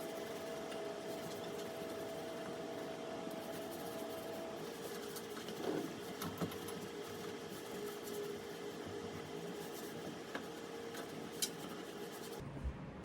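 Light rubbing and scraping with a few soft clicks over a steady faint hum.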